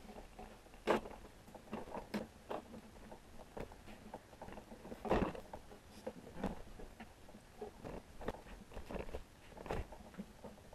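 Irregular light clicks, taps and rustles of hands handling a subwoofer's lead wires and frame while threading the leads through, with sharper knocks about a second in and near the middle.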